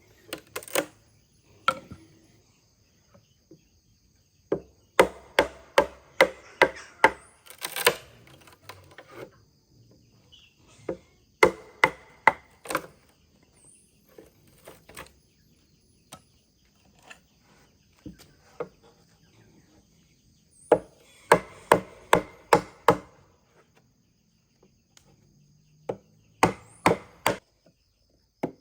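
Bamboo being chopped with a blade: sharp wooden strikes in bursts of several quick blows, with pauses between bursts. Insects chirr steadily in the background.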